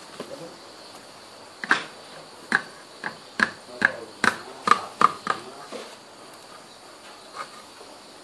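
Knife point jabbed down onto a tin can's lid, a series of about ten sharp taps roughly two or three a second, as the lid is pierced to open the can without a can opener.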